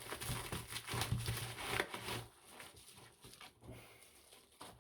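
Rustling and crinkling of parcel packaging as it is opened and handled by hand: a busy stretch of crackles for the first couple of seconds, then fainter scattered rustles.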